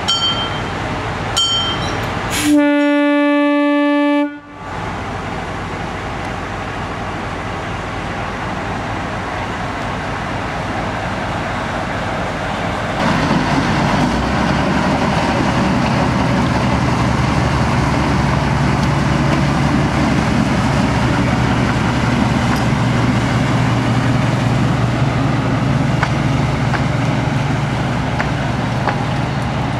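A narrow-gauge diesel locomotive's horn gives one clear blast of about two seconds. The locomotive's diesel engine then runs with a steady low drone that gets louder about halfway through as the train pulls out.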